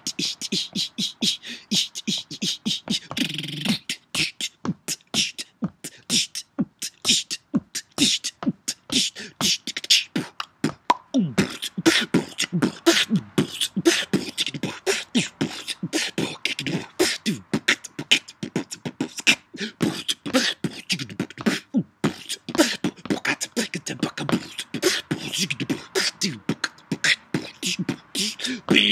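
Solo beatboxing: a fast, dense run of percussive mouth sounds throughout, joined about eleven seconds in by a hummed bass line that slides up and down in pitch under the beat.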